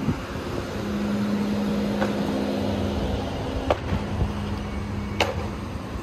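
Street ambience: a steady mechanical hum over a low rumble, with three short sharp clicks about two, three and a half, and five seconds in.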